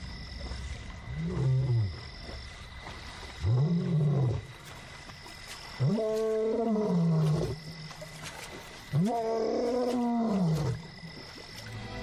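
Young male African lion roaring: four deep moaning calls, each rising then falling in pitch, growing longer and louder one after another as a roaring bout builds. It is a long-distance contact call to his missing companion.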